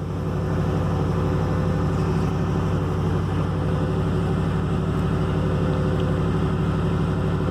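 2005 Ford F-150 engine running steadily at idle during a scan-tool key-on, engine-running self test, which changes the idle speed; the sound picks up slightly in the first second, then holds even.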